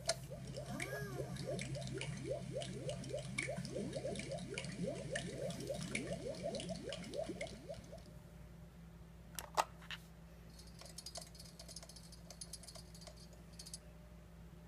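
Bubbling-water sound effect from a sensory app played through a tablet speaker: a fast run of rising bubble blips, about four a second, that fades out about eight seconds in. A single sharp click comes near the ten-second mark.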